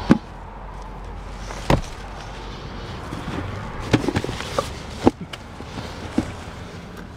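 Plant pots and leaves being shifted about in a car's door opening: a handful of sharp knocks and bumps, scattered and irregular, over a steady low background.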